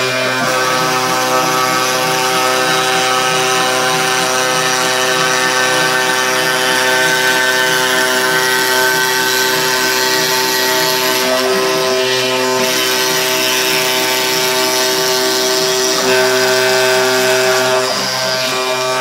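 Homemade CNC milling machine milling plywood: a steady machine whine made of several tones. The tone shifts about twelve seconds in and again near the end as the cut moves on.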